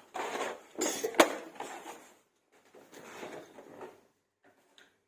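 Plastic toy monster trucks and ramp pieces clattering and being handled, with one sharp click about a second in.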